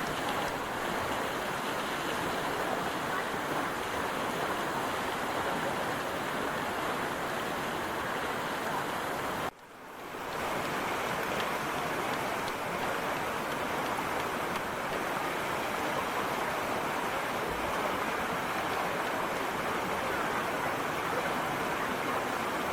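Steady rush of a waterfall, cutting out briefly about nine and a half seconds in and fading back up.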